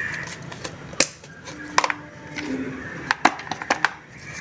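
Clear plastic lids being set and pressed onto plastic food tubs: a series of light plastic clicks and knocks, several in quick succession near the end.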